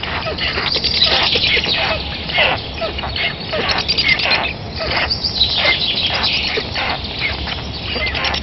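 Birds chirping: a dense run of overlapping high calls, many sweeping downward in pitch, that cuts off suddenly at the end.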